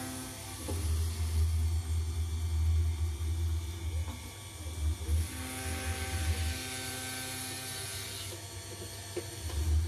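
Small end mill in a 6040 CNC router spindle cutting grade 5 (Ti-6Al-4V) titanium under coolant spray. The cut makes an uneven low rumble with machine tones over it, which eases about six and a half seconds in and comes back near the end.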